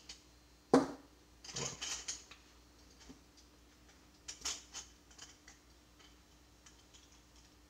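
Hands handling a tape measure, a metal snap clasp and paracord: a sharp knock about three-quarters of a second in, then a few light clicks and rattles around two and four and a half seconds in, over a faint steady hum.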